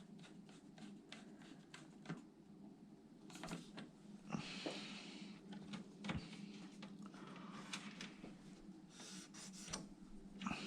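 Faint handling noise of computer case parts: a run of light ticks, then scraping and rubbing, over a steady low hum.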